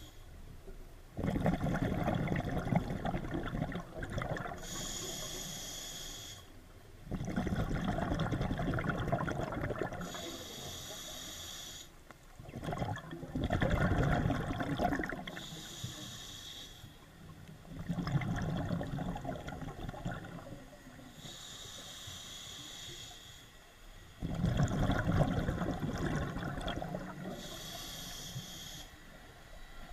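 Scuba diver breathing through a regulator underwater: a short high hiss on each inhale alternating with a longer rush of bubbling exhaust bubbles on each exhale, about five slow, even breaths. It is heard through a GoPro's waterproof housing.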